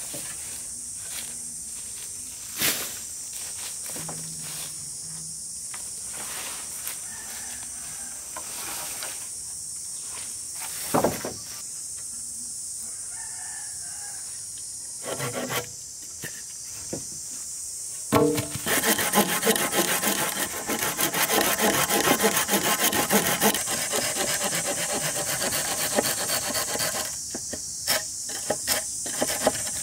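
Wood being worked by hand: light scraping with a few sharp knocks, then a saw cutting steadily through wood for about nine seconds in quick, loud strokes, over a steady high hiss.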